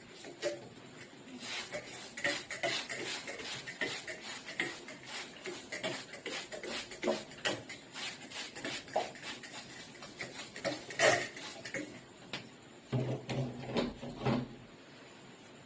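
Hands massaging a person's head and hair: a dense, irregular run of quick crackles and taps, with one sharper, louder click about eleven seconds in. Near the end comes a short low hum-like sound.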